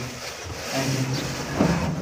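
Wooden straightedge scraping across freshly applied cement plaster on a ceiling, cutting it level, over a low steady engine-like hum.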